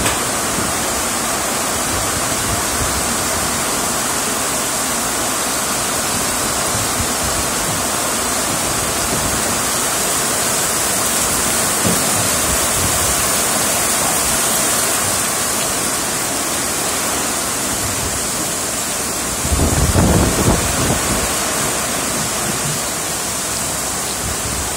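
Heavy rain pouring down onto a wet asphalt road and puddles: a steady, dense hiss. Near the end, a low rumble of wind on the microphone.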